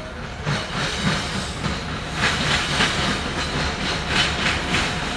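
Approaching train led by Union Pacific diesel locomotives: a steady low rumble with rhythmic hissing, clicking pulses about three times a second, growing louder about half a second in and again about two seconds in.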